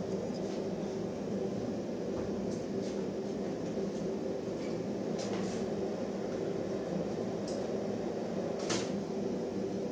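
A forge running with a steady, even rushing noise. Metal tools clink faintly a few times, the sharpest clink near the end.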